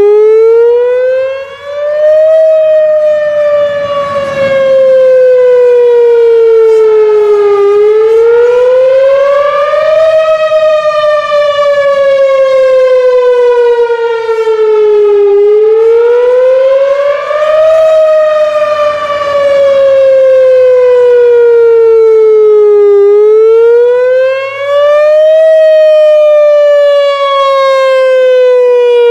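Whelen 4004 outdoor warning siren sounding its attack tone on a routine test. The pitch climbs over about two and a half seconds, then sinks over about five, and this repeats four times.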